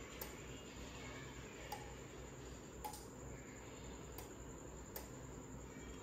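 Five faint, sharp clicks spaced a second or so apart over a low steady room hum: taps on a smartphone's touchscreen while scrolling and selecting in a smart-home app.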